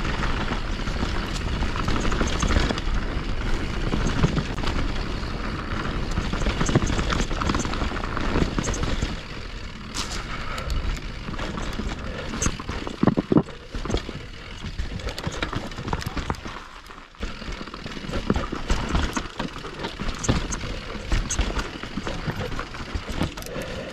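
Mountain bike riding down a rocky trail: a steady rush of wind on the microphone with frequent sharp knocks and rattles as the tyres and frame hit rocks.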